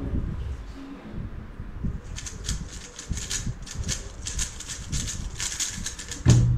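A 3x3 speedcube being turned fast during a timed solve, its plastic layers clicking in a rapid, dense run from about two seconds in.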